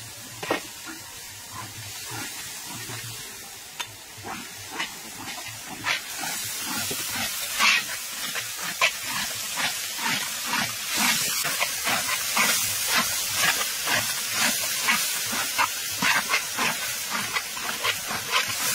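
Chili and garlic paste frying in oil in a large steel wok: a steady sizzle that grows louder about six seconds in, with a metal ladle scraping and clinking against the wok as it is stirred.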